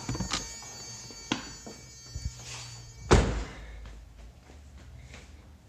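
A few light clicks and knocks, then one loud, solid thunk about three seconds in, over a low steady hum.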